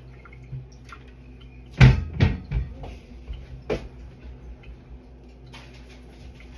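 Clunks and knocks of a kitchen oven door being opened and a foil-covered baking pan being slid onto the oven rack. The loudest clunk comes about two seconds in, followed by smaller knocks, a sharp click, and light rattles near the end.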